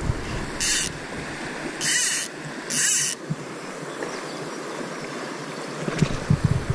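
River water rushing steadily, with three short hissing swishes of fly line in the first three seconds as a switch rod is worked.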